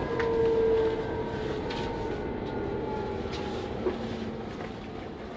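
Electric S-Bahn commuter train heard from inside the carriage: wheels rumbling on the rails under a motor whine that slowly falls in pitch as the train slows. A few sharp clicks from the wheels run through, with one louder knock about four seconds in.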